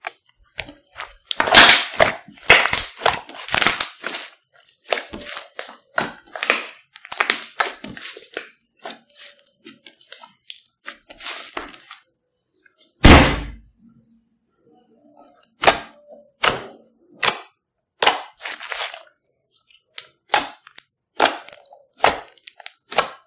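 Hands squishing and poking a large pink slime, giving irregular clusters of wet crackles and pops as air pockets burst. About halfway through comes one loud, deep thud: the slime slapped down onto the wooden table.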